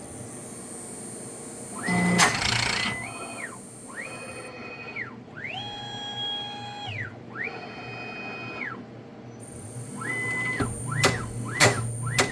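CNC router's stepper motors whining through a series of automatic tool-change moves. Each move rises to a steady pitch, holds, and falls back. There is a brief loud burst of noise about two seconds in and a few sharp clicks near the end.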